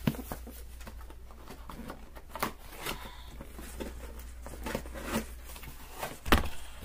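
Rustling and light knocks from a cardboard product box being handled, with one louder knock near the end.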